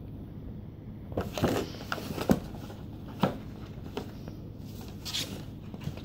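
Thin cardboard box scraping, rustling and knocking as a kitten wriggles inside it and shoves it over carpet against a wall. There is a quick run of scuffs and taps about a second in, then a few single knocks and a short rustle.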